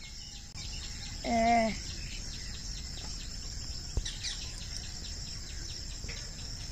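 Insects chirring steadily, with a faint rhythmic ticking pulse of about four a second. About a second in comes a short muffled hummed vocal sound from the boy, fingers in his mouth, and a single sharp click near the middle.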